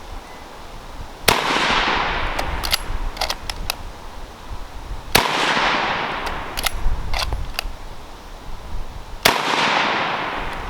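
A .303 rifle fired three times, about four seconds apart, each sharp crack followed by a long fading rumble of echo, with lighter clicks between the shots.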